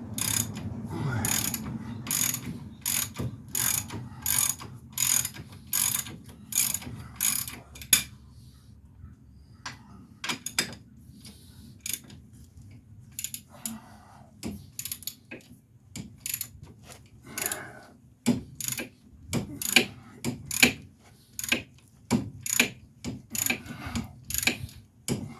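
Hand ratchet wrench clicking in quick back-and-forth strokes, about two a second, as a tight brake caliper bracket bolt is worked loose. The strokes pause for several seconds in the middle and then resume.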